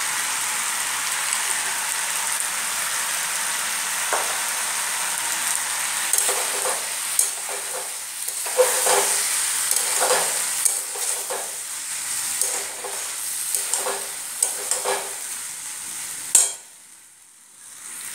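Masala macaroni sizzling steadily as it fries in a metal kadai on a gas flame. From about six seconds in, a metal spatula stirs it, scraping and knocking against the pan over and over. Near the end there is a last sharper knock, and then it falls much quieter.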